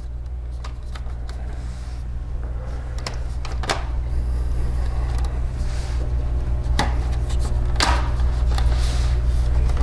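Plastic laptop case parts being pushed and worked into place, giving scattered clicks, knocks and scrapes, over a steady low hum.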